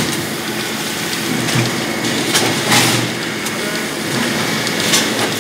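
CFS SX400 vertical bagging machine running: a steady mechanical hum, with a short sharp hissing burst every two to three seconds as the machine cycles.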